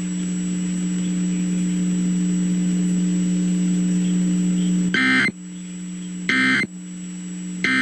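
A steady low electrical hum on the broadcast audio, then three short, shrill screeching data bursts about a second apart from about five seconds in: the EAS end-of-message code, which closes the alert.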